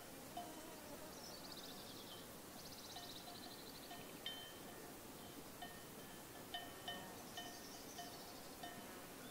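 Sheep bells clinking irregularly: short, faint rings of a bell at a few fixed pitches, about a dozen strokes. Three times a fast, high trill sounds between them.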